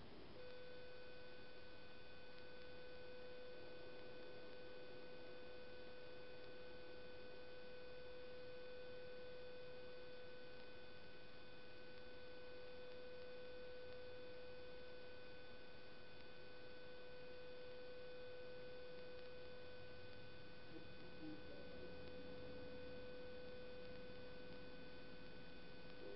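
Steady electronic hum at one mid pitch with fainter overtones, switching on and cutting off abruptly.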